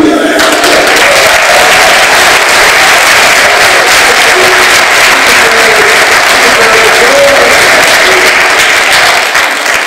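Church congregation applauding, a loud, dense clapping that holds steady and then dies down near the end.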